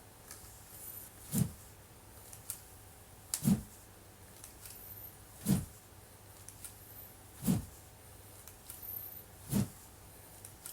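Wooden practice sword (bokken) swung through the air in repeated practice cuts: a short whoosh about every two seconds, five in all.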